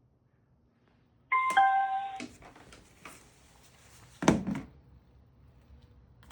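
A short electronic chime of a few steady, stepped tones, typical of a small Bluetooth speaker's power-on or pairing prompt, sounding for about a second. A single knock follows about three seconds later.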